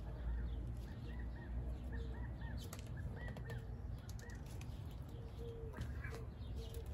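Birds chirping outdoors: a run of short, quick high chirps, several a second, with a lower note repeating now and then. Under them is a steady low rumble and a few soft clicks.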